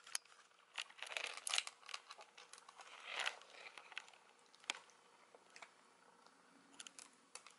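A British Shorthair kitten crunching dry kibble from a plastic bowl: faint, irregular crunches and clicks.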